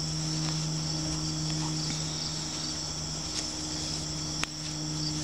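Steady high-pitched chorus of insects, with a low steady hum beneath it and a single sharp click about four and a half seconds in.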